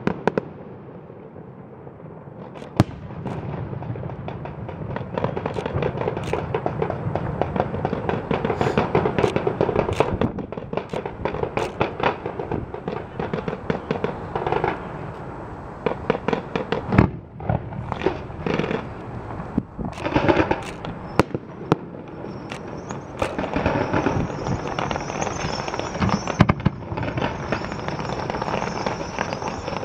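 Aerial fireworks bursting in quick succession: many sharp bangs and dense crackling, with a high hiss joining over the last third.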